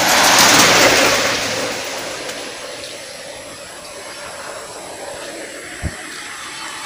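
A light Isuzu truck drives past close by, its engine and tyre noise peaking in the first second and fading away over the next two. A steady hiss remains after it, with a brief low thump near the end.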